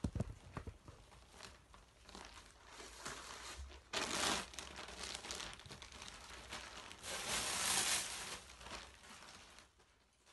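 Plastic mattress wrapping crinkling and rustling as it is pulled and handled, loudest in two stretches about four and seven seconds in, fading out near the end.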